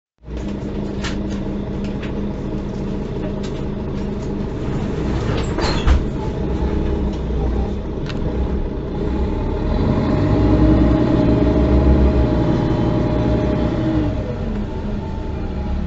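Mercedes-Benz O530 Citaro city bus's diesel engine heard from inside the passenger cabin, first running steadily with several clicks and a knock, then pulling away with a rising engine note in the second half that eases off near the end.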